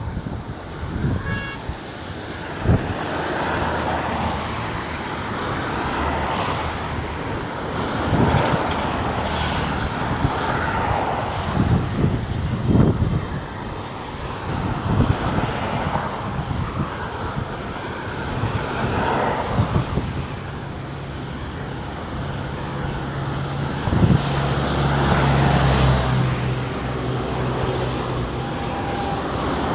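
Road traffic on a highway: vehicles passing one after another, their tyre and engine noise swelling and fading. A steady low engine hum from a heavy vehicle sits under the traffic for several seconds near the end.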